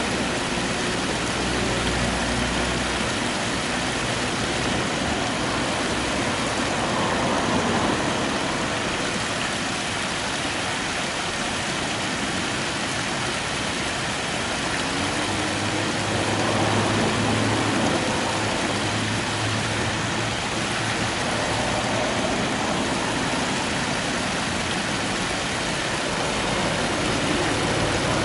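Steady rushing of a flowing stream, with a low motor-like hum that comes and goes, strongest from about the middle onward.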